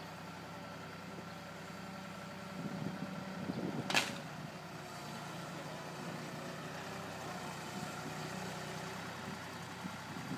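Engine of a wheeled log-grapple loader running steadily while its orange-peel grapple handles tree roots, with a single sharp knock about four seconds in.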